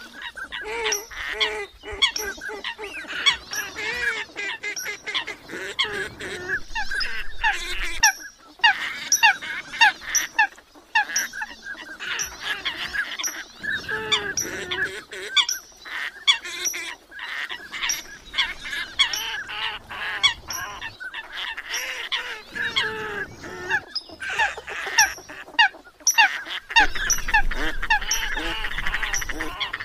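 A flock of Eurasian coots calling: a dense chatter of many short, sharp, overlapping calls without a pause.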